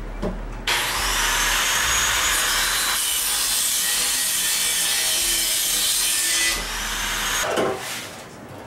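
Angle grinder with a cutoff wheel spinning up and cutting through a rusted exhaust pipe for about six seconds, then winding down. A short clunk follows near the end.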